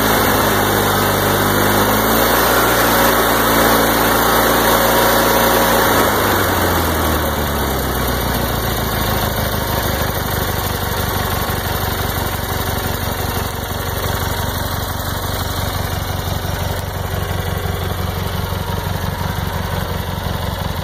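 Kohler Magnum 20 engine on a Simplicity garden tractor running: it speeds up over the first couple of seconds, holds there, drops back about seven seconds in, and then idles steadily.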